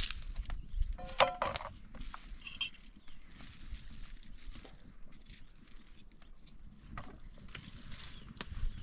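Light clicks and taps of tomatoes and a knife being handled in a metal bowl, with a short bleat from nearby livestock about a second in.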